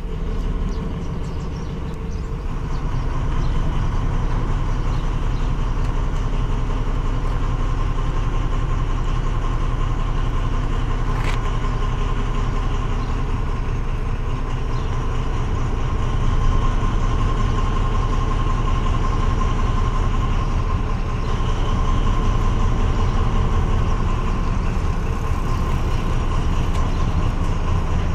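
MÁV M41 diesel-hydraulic locomotive approaching slowly with a train of flat wagons, its diesel engine running with a steady low rumble and a steady whine over it, growing louder about three seconds in. A single short click sounds near the middle.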